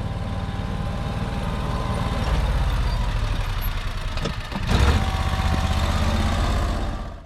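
Vehicle engine running with a steady low rumble, growing louder about two seconds in, with a short knock near five seconds.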